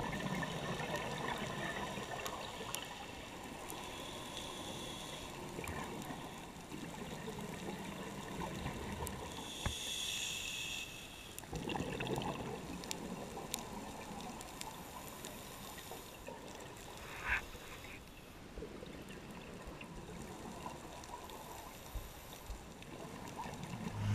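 Muffled water noise heard underwater, steady and fairly quiet, with scattered clicks and a few louder surges about ten and twelve seconds in.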